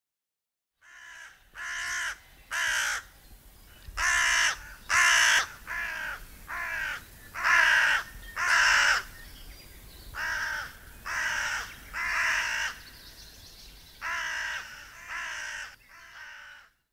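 Hooded crows cawing: a long run of about fifteen harsh caws, each dropping a little in pitch, mostly coming in twos and threes.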